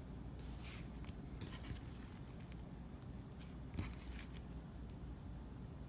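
Faint soft squishes and small sticky clicks of glittery slime being handled and stretched, several brief ones scattered through and a sharper click about two-thirds through, over a low steady hum.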